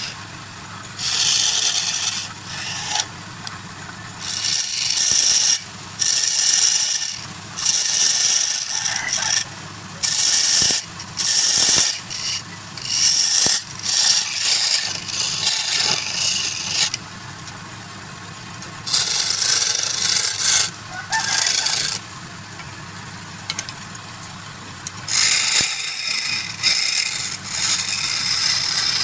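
Wood lathe running with a steady low hum while a tool is pressed against the spinning wood in repeated short passes. Each pass is a hissing scrape lasting about a second or two, with brief gaps between.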